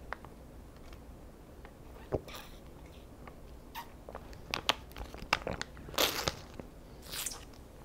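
A small stick pouch of red ginseng extract is squeezed into the mouth and sucked from, giving scattered crinkles, clicks and short rustles. The mouth and swallowing sounds come in short bursts, the busiest stretch being near the middle and end.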